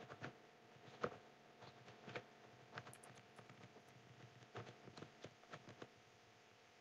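Faint, irregular keystrokes on a computer keyboard, coming more quickly about four and a half seconds in, then stopping.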